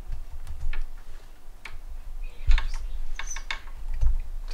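Clicks and small rattles of parts being fitted by hand onto a Printrbot 3D printer's carriage, with a cluster of clicks past the middle and low bumps against the frame.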